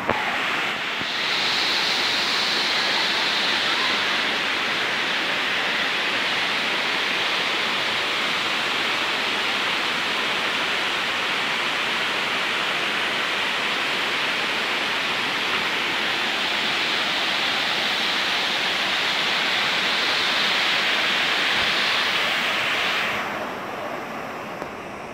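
Waterfall rushing: a loud, steady hiss of falling water. About 23 seconds in it drops abruptly to a quieter rush.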